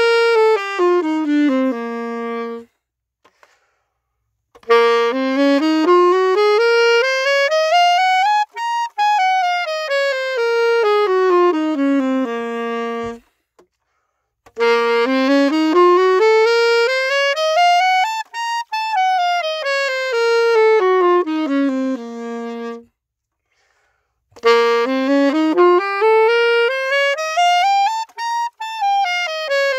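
Saxophone playing a scale exercise: single notes stepping up about two octaves and back down, ending each run on a held low note. After the tail of one descending run, there are two full up-and-down runs and the start of a third, with a short pause before each.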